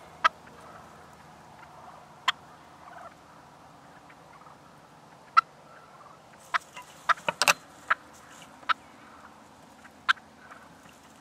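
Wild turkey jake giving short, sharp putts and clucks, single calls a second or more apart with a quick run of several near the middle: alarm calls from a bird that senses something is wrong.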